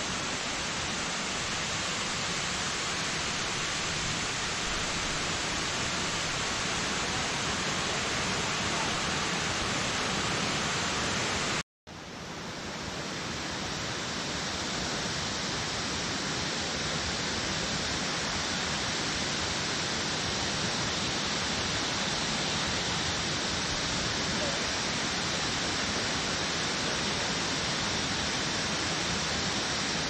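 Rushing water of Kuang Si Falls, a three-tiered waterfall cascading over rock steps into pools: a steady, even rush. It drops out for a moment about twelve seconds in, then returns with a slightly brighter hiss.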